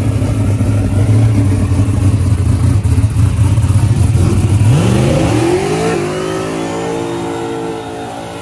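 Fox-body Mustang drag car's engine during a burnout: it runs at a steady rev, then about five seconds in the revs climb sharply and hold high, fading somewhat as the car rolls forward through the tyre smoke.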